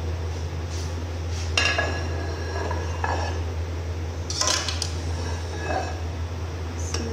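Metal spoon clinking and scraping against an aluminium cooking pot while scooping out cooked rice, with a few sharp clinks about a second and a half in, around four and a half seconds, and near the end. A steady low hum runs underneath.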